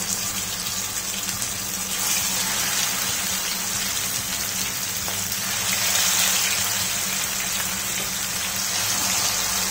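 Marinated chicken leg pieces sizzling in hot oil in a frying pan, the sizzle swelling about two seconds in and again about six seconds in as more pieces are laid in.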